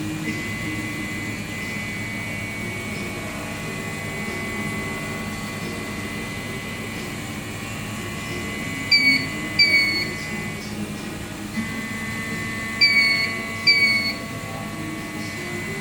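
Steady electronic hum with a constant high whine from a 1/14-scale RC truck's electronics. Two pairs of short, falling beeps stand out, about halfway through and again about two-thirds of the way in.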